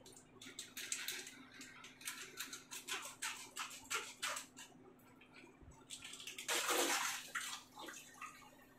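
Grated cheese being put onto an uncooked pizza on a glass plate: a string of short scratchy taps and scrapes, then a louder rushing rustle about seven seconds in. A steady low hum runs beneath.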